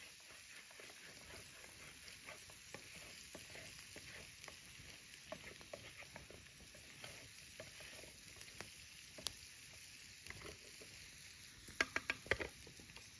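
Pasta frying in a pan over a campfire, sizzling steadily while a wooden spatula stirs and scrapes through it, with scattered small clicks. Near the end, a quick run of sharp clacks, the spatula knocking against the pan.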